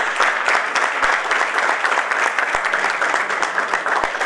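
Audience applauding, many hands clapping steadily at the close of a talk.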